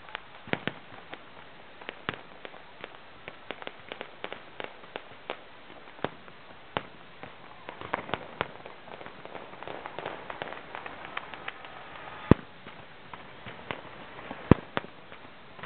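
Black-powder blank fire from a pirate ship and the boats around it: a string of irregular sharp bangs and pops, with two much louder booms about two seconds apart near the end.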